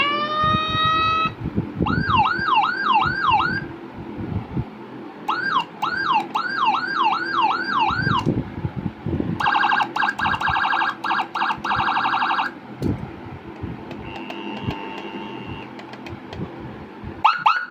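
G2 Gamma 50W electronic siren module sounding through a 10W oval horn speaker, stepping through its tone patterns. It opens with a rising whoop, then gives bursts of fast repeated up-sweeps at about four a second. About ten seconds in comes a rapid stuttering warble, then a brief fainter steady tone, and the fast sweeps return near the end.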